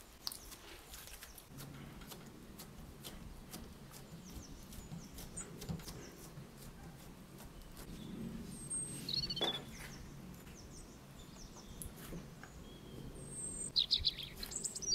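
Sticky glutinous rice dough being kneaded, patted flat and folded with a plastic scraper on a silicone mat: soft squishes, pats and small clicks. A few short high chirps come about nine seconds in and again near the end.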